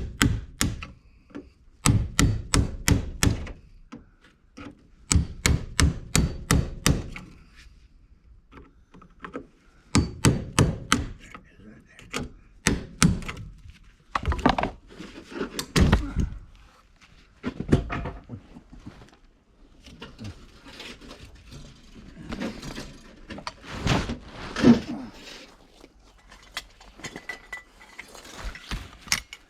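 Hammer blows on wood, struck in quick runs of several strokes at a time with pauses between, then scattered knocks and handling noise toward the end.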